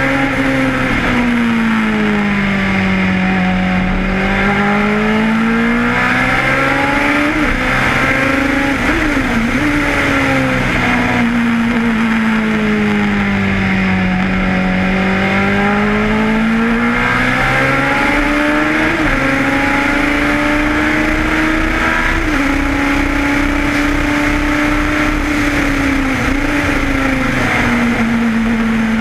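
Lotus 91 Formula One car's Cosworth DFV V8 heard onboard at racing speed. Its note falls in long sweeps as the car slows for corners and climbs again under acceleration, with quick gear changes breaking the pitch several times.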